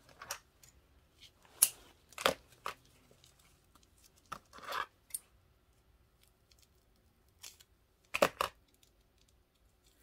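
Craft handling noises: scissors and a jute-rope-wrapped foam egg moved about on a cutting mat, giving a few scattered short clicks and rustles with quiet gaps between them.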